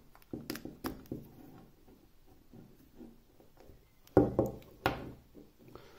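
Light clicks and knocks as a USB cable is fitted into a small cylindrical portable battery, with two louder knocks about four and five seconds in.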